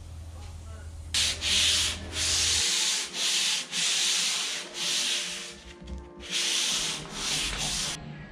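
Hand sanding a finished wooden tabletop with a sanding sponge. It is a series of scratchy back-and-forth strokes with short pauses, starting about a second in and stopping just before the end.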